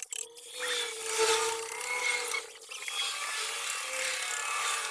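Small electric motor of a coil-winding jig running as copper wire is wound onto an alternator rotor's field coil: a whine that wavers in pitch over a rasping hiss, easing off briefly about halfway.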